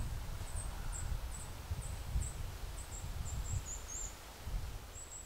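A small songbird repeating very thin, high-pitched chirps, about two to three a second, over a low rumble.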